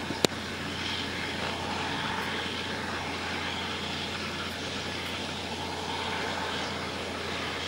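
CLAAS self-propelled forage harvester running steadily as it chops maize, a continuous drone of engine and chopping gear. A single sharp click comes just after the start.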